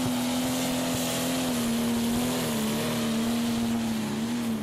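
Modified pulling tractor's engine running flat out under full load as it drags the weight sledge, its pitch high and steady with only slight wavers.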